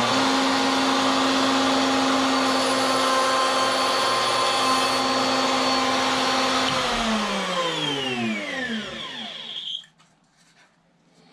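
Electric wood router running at full speed with a steady high whine, then switched off about seven seconds in and winding down, its pitch falling until the motor stops near the end.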